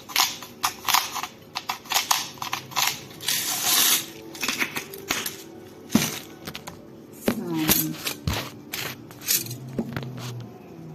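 Kitchen clatter of plates and utensils: a string of sharp clicks and taps, with a short denser rattle about three and a half seconds in.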